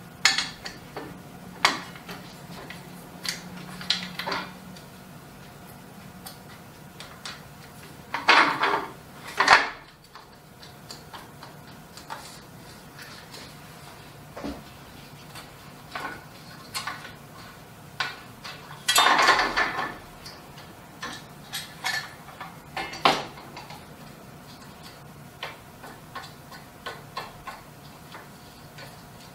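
Metal parts of an Anatol screen printing press clinking and knocking as its screen holder arms are taken off, flipped and refitted by hand: scattered taps and clicks, with a few louder knocks and one longer scrape about two-thirds of the way through.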